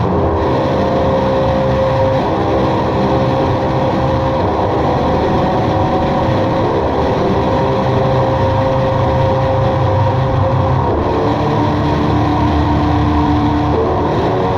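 Experimental drone music: a dense, steady wall of sustained tones over a heavy low end, its held notes shifting every few seconds, about two seconds in, around seven and eleven seconds, and near the end.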